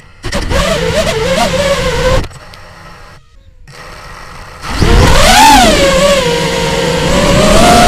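Racing quadcopter's brushless motors (Lumenier RX2206 2350kv) and 5-inch triblade propellers whining, the pitch changing with throttle. A loud burst for about two seconds, a quieter stretch, then louder again from about five seconds in, with a sharp rise-and-fall swoop followed by a slowly climbing whine.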